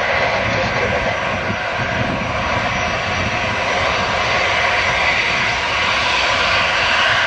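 Airbus A320's twin jet engines running at taxi power as the airliner rolls along the ground: a steady, even jet whine and rush with a thin high tone on top.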